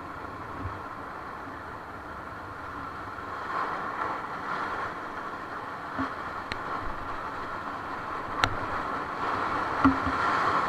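River water rushing and splashing around a paddled raft, growing louder toward the end, with a few sharp knocks.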